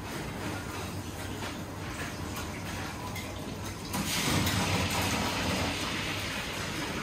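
Buffet hall ambience: a steady rushing noise like running water, which swells louder about four seconds in.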